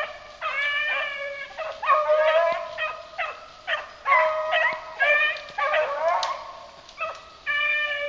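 A pack of beagles baying on a running rabbit's track. Several hounds' calls overlap, following one another about twice a second, some falling in pitch.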